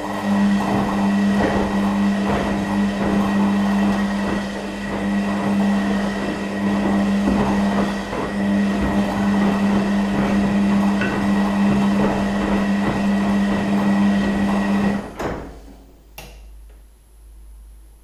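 Beko WKB 61022 front-loading washing machine in its wash phase: the drum motor runs with a steady hum while the laundry and water slosh and tumble in the drum. About fifteen seconds in the motor stops suddenly and the drum comes to rest.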